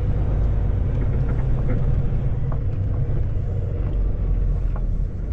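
Semi truck's diesel engine running with a steady low rumble, heard from inside the cab as the tractor rolls slowly, with a few faint ticks.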